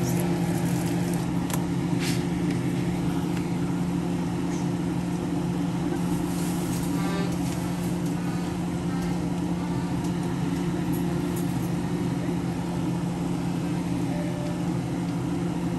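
A steady low mechanical hum of a running motor, with a few light clicks over it.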